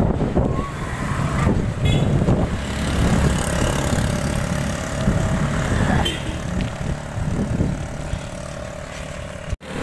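Wind buffeting the microphone of a phone carried on a moving bicycle, an uneven low rumble that swells and fades, with motor traffic running by on the road. The sound drops out for an instant near the end.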